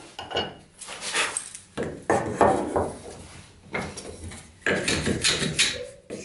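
Wooden hand planes handled on a wooden workbench: irregular knocks and short scrapes of wood on wood as a plane is picked up, shifted and set down.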